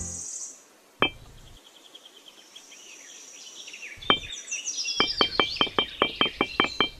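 Miniature clay bricks clicking as they are set down one against another. There is a single click about a second in and another at about four seconds, then a quick, even run of about five or six clicks a second from about five seconds in, over faint bird chirps.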